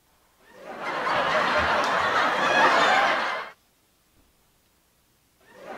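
Canned studio-audience laugh track: a crowd laughing that swells in about half a second in and cuts off abruptly after about three seconds.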